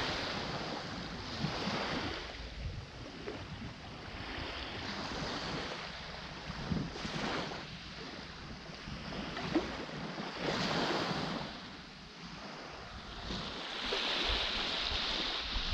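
Small sea waves breaking and washing up a sandy beach, each swell rising and falling away every few seconds.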